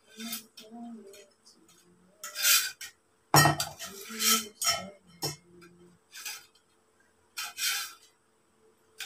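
Metal poles of a telescopic clothes rack clinking and clattering against each other and their fittings as they are handled and fitted together: a string of separate sharp clinks, with the loudest knock about three and a half seconds in.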